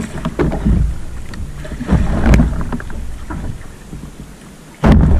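Irregular loud splashing of water at the kayak's side as a hooked yellowfin tuna thrashes at the surface, with wind buffeting the microphone. The strongest surges come about two seconds in and near the end.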